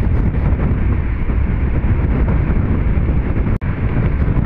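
Steady loud rumble and rush of a moving passenger train heard from an open coach window, with wind buffeting the microphone. The sound cuts out for an instant about three and a half seconds in.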